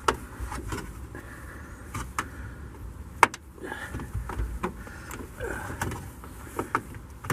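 Sharp plastic clicks and knocks with handling noise as the trunk light housing of a 2012 Honda Civic is pressed at its release tab and worked out of its opening in the trunk lid; the loudest click comes about three seconds in.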